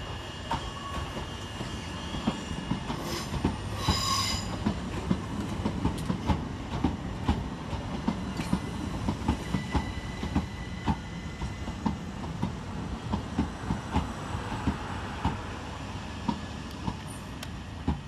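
Southern Class 377 Electrostar electric multiple unit arriving at the platform, its wheels clicking steadily over rail joints above a low rumble. A brief high squeal comes about four seconds in.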